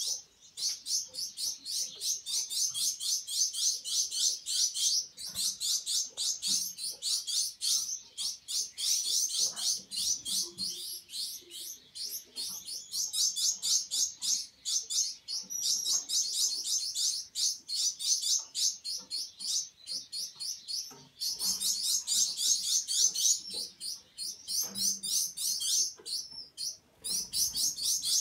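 Gouldian finches, mostly young fledglings, giving a rapid run of high, thin chirps, several a second, with a few brief pauses.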